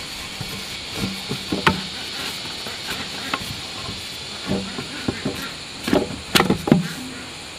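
Irregular wooden knocks and thuds as logs and bamboo poles are handled or struck during fence building: a few scattered knocks, then a louder cluster near the end, over a steady high hiss.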